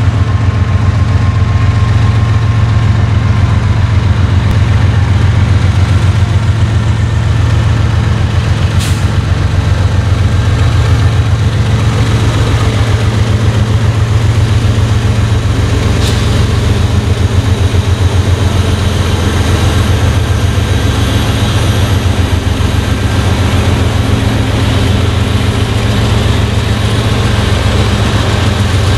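Norfolk Southern GE diesel locomotives, an ES40DC leading Dash 9s, rumbling with a steady low throb as they approach and pass slowly. Two brief sharp clicks come about 9 and 16 seconds in.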